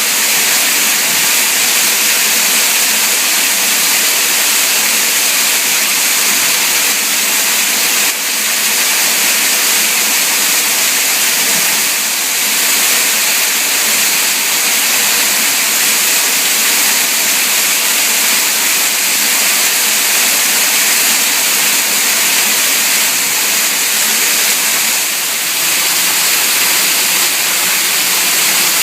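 Water from a small garden waterfall pouring and splashing, a steady loud rush.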